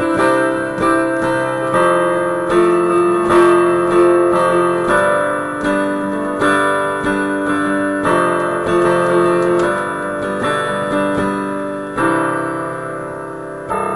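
Piano playing the closing bars of a song, chords struck roughly every three-quarters of a second, ending on a final chord about twelve seconds in that is left to ring out.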